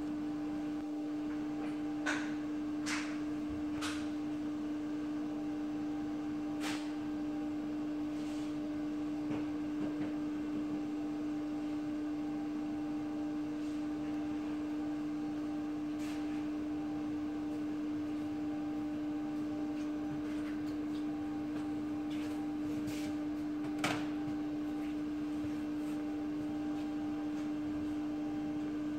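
A steady mid-pitched electrical hum, with a few light clicks scattered through it.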